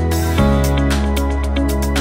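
Background music with a steady beat over sustained bass notes; the bass note changes about half a second in.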